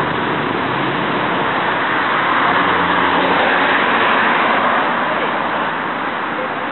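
Steady street traffic noise from passing cars, with tyre and engine hiss that swells about halfway through and eases off near the end.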